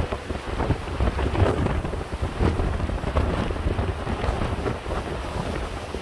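Strong gusting wind buffeting the microphone in deep, uneven rumbles, over the wash of a rough sea.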